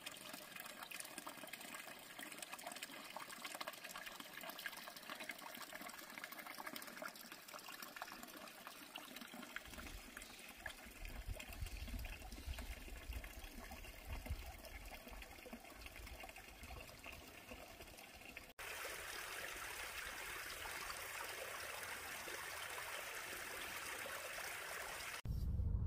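Small mountain brook trickling and splashing over rocks, a steady rush of running water. About two-thirds through it cuts to a second, steadier stretch of flowing water.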